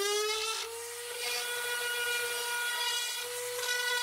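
Random orbital sander reaching full speed about half a second in, then running at a steady pitch as its pad rubs across the face of a wooden puzzle, sanding off pencil marks.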